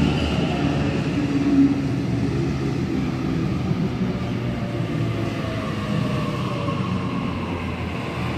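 Sydney Trains Waratah double-deck electric train moving slowly past along the platform: steady running rumble with the electric traction motors' whine, which glides slowly down in pitch.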